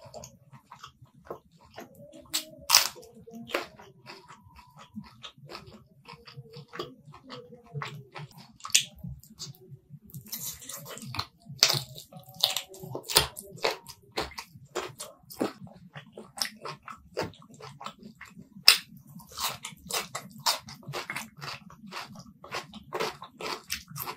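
Close-miked eating sounds from a mouthful of rice and chicken curry eaten by hand: wet chewing with many sharp lip smacks and mouth clicks. A denser, noisier stretch of chewing comes about halfway through.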